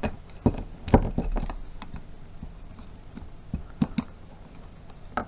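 Irregular small clicks and clinks of thermostatic shower mixer tap parts being handled and worked apart by hand, the sharpest in the first second or so.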